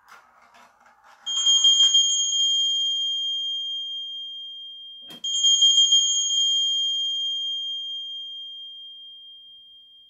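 Faint rattle of the steel ball rolling in the tilting track of a 3D-printed rolling ball timer, then the timer's end-of-countdown alert: two high, bell-like chime tones, each struck and ringing away over several seconds, the second preceded by a sharp click.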